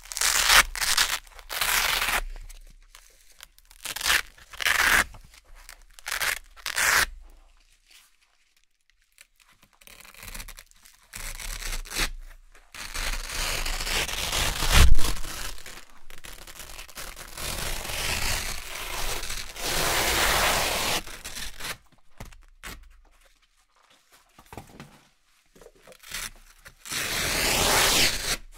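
Hook-and-loop (Velcro) circle patches being torn apart. A quick run of short ripping tears gives way to a pause about eight seconds in, then longer, continuous crackling tears, and a few more short rips near the end.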